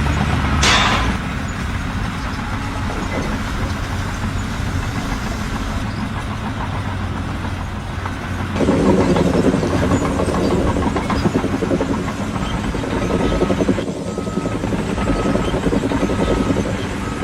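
A heavy machine's engine running steadily, growing louder about halfway through. A short hiss comes about a second in, and faint short beeps repeat near the end.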